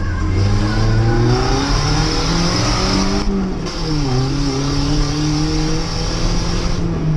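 Nissan Hardbody pickup's engine accelerating under load, its note climbing. About three seconds in the pitch drops as it shifts up a gear, then it holds and climbs again.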